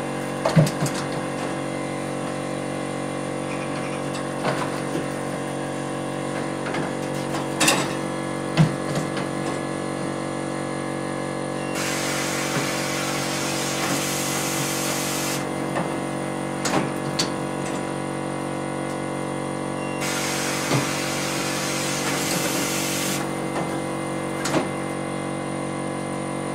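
Automatic lamb weighing crate and sorting gate at work: a steady machine hum with scattered knocks and clanks, and two hisses about three seconds long, a little before halfway through and again about twenty seconds in.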